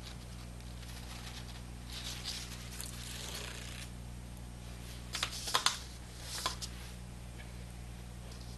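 Handling noise from small metal record-player motor parts, a shaft and pulley being worked by hand: soft rustling about two to four seconds in, then a few sharp light clicks around five and a half seconds and once more near six and a half. A steady low hum runs underneath.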